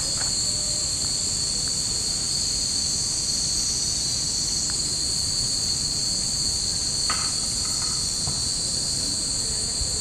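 Cicadas buzzing steadily in the summer trees, a continuous high, even drone.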